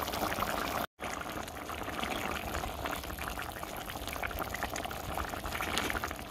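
Vegetable kurma bubbling in a steel pan as it comes to the boil, a steady crackle of small bubbles. The sound drops out completely for a moment about a second in.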